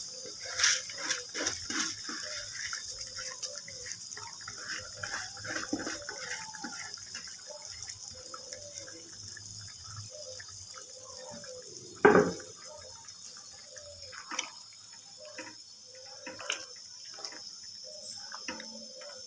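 Water at the boil bubbling in a cooking pot as soaked rice is added, with scattered splashes and small clinks and one sharp knock about twelve seconds in.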